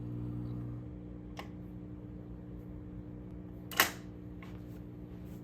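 Steady electrical hum from the record player's amplifier, with a faint click about a second and a half in and a louder, sharp click near four seconds.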